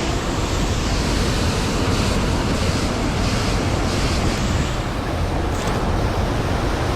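Loud, steady rush of fast-moving stream water below a dam, an even roar of flowing water with a low rumble underneath.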